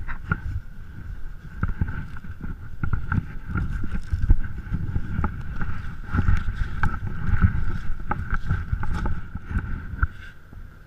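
Scallop-fishing boat underway, with wind buffeting the microphone over a steady high whine and many scattered knocks; the whine and most of the rumble drop away near the end.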